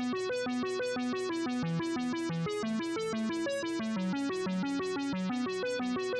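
Background music: a bright synthesizer or electric-piano melody of quick, evenly spaced notes at a steady level, starting abruptly right at the outset.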